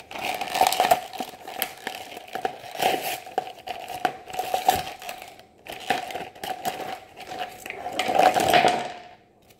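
Plastic blister and cardboard toy packaging being crinkled, pried and torn open by hand, with irregular crackles and rustles. A steady faint electrical buzz runs underneath.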